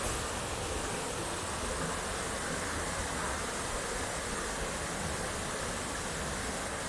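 A small waterfall, with the steady, even rush of falling water.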